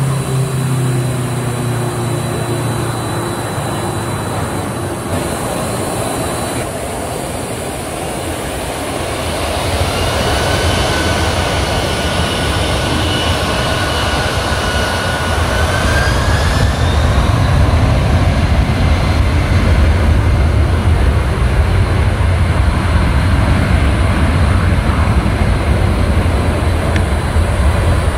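Boeing 767-300's two turbofan engines spooling up for takeoff: a steady low hum, then from about ten seconds in a whine that climbs in pitch near the middle as thrust comes up, giving way to a deep rumble as the jet starts its takeoff roll.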